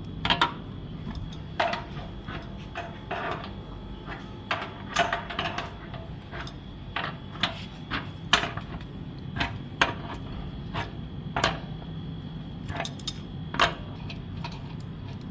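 Hand tools and metal parts clinking and knocking irregularly during a water heater repair, over a steady low hum.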